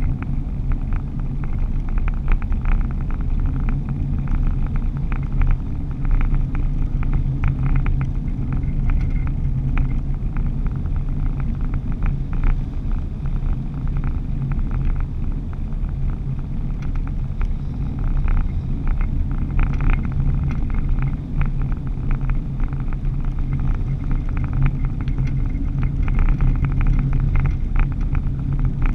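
Engine and road noise of a car or truck driving at highway speed, heard from inside the cab: a steady low drone with frequent light clicks and rattles.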